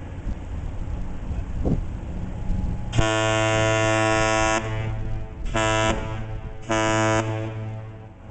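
Deep ship's horn of the self-unloading lake freighter Manistee: one long blast of about a second and a half, then two short blasts.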